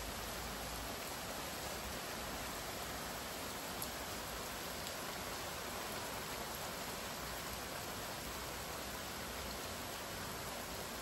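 Steady rain falling on a paved yard, an even hiss of rain on wet ground and puddles, with a faint tick about four seconds in and another about a second later.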